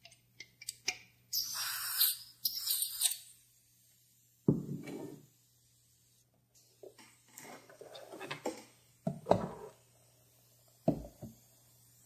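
Lighter gas hissing in two short bursts as a Ronson gas lighter is refilled from a refill can pressed onto its valve, followed by several knocks and clunks as things are handled and set down on a wooden table.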